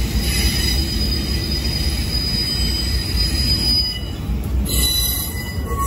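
CSX freight train rolling past at close range, a locomotive giving way to boxcars: a steady low rumble of wheels on the rails with thin, high squealing tones from the wheels over it.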